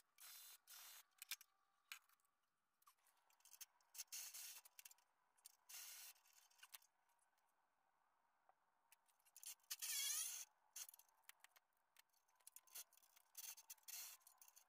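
Faint, scattered scraping and rubbing from hands working on engine parts and wiring. Three short, evenly spaced scrapes open it, and the loudest single scrape comes about ten seconds in.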